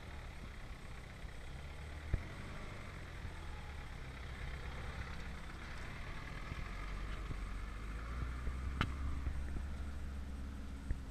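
First-generation Mitsubishi Pajero's engine running at low revs as it crawls down a rutted sand track, getting louder as it passes close by. A sharp crack about nine seconds in.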